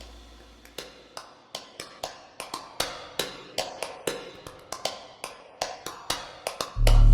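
Small hammer tapping on silver jewelry metal in a quick, slightly uneven run of about sixteen sharp taps, each with a brief metallic ring. Loud music comes in near the end.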